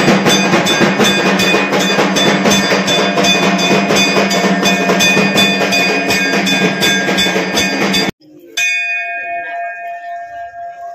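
Temple aarti bells ringing and clanging in a rapid, steady beat of about four strikes a second, with percussion, cutting off suddenly about eight seconds in. Then a single bell is struck once and rings out, slowly fading.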